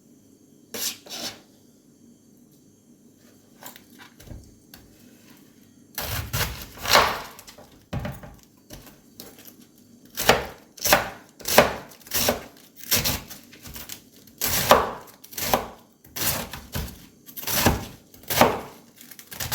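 Knife chopping on a wooden cutting board: a couple of knocks about a second in and a few scattered ones, then from about halfway a steady run of chops at roughly one and a half a second.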